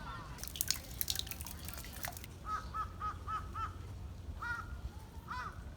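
A crow cawing: a quick run of five short caws, then single caws about a second apart. Before the caws, a brief flurry of sharp clicks.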